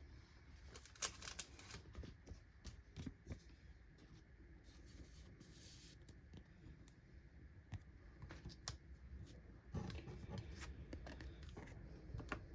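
Pokémon trading cards being handled and flicked through in the hand: a string of soft card clicks and slides, with a brief rustle about halfway through.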